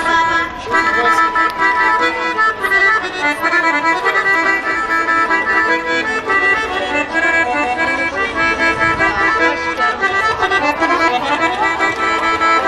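Piano accordion playing a lively Bulgarian folk tune, with chords and melody moving in a steady rhythm.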